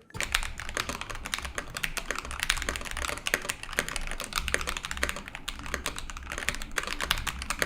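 Mechanical keyboard typing with fast, continuous keystrokes on Akko CS Jelly Black linear switches in an Ikki68 Aurora with an FR4 plate and GMK keycaps. Loud, high-pitched clacky keystrokes, a tad deeper than other Akko Jelly switches.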